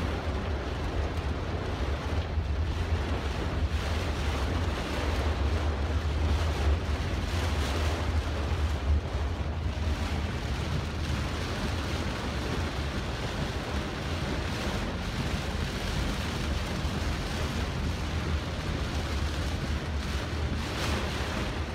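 Very heavy rain beating on a car's roof and windshield, heard from inside the cabin, steady throughout with a low rumble underneath.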